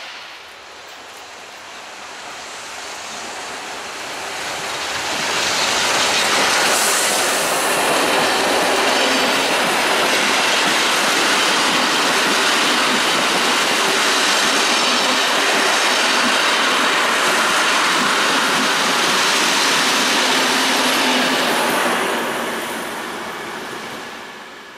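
Steam-hauled train led by locomotive 477.043 passing by: the rolling noise of wheels and carriages swells over a few seconds, stays loud for about fifteen seconds, then fades away as the train recedes.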